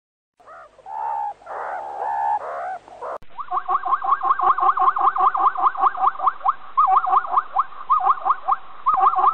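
Short pitched meerkat calls for about three seconds. Then zebras take over with a fast run of repeated yelping barks, several a second, each rising in pitch.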